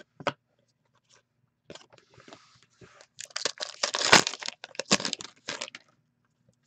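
A hockey card pack's wrapper torn open and crinkled, a burst of ripping and crackling for about two and a half seconds in the middle, with a few light clicks of cards being handled before it.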